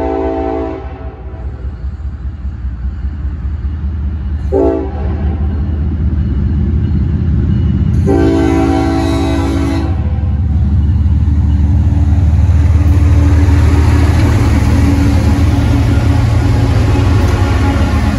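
Norfolk Southern freight train's lead GE ES40DC locomotive sounding its air horn: a blast ending about a second in, a short toot near five seconds, then a longer blast around eight to ten seconds, the close of a grade-crossing signal. Under it the locomotives' diesel engines rumble steadily, louder through the second half as the train comes by.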